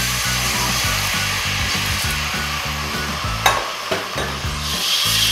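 Water poured into a hot stainless steel pot of oil-fried onions and spices, hissing and sizzling, then a metal ladle stirring, with a sharp clink against the pot about three and a half seconds in. Background music with a steady beat runs underneath.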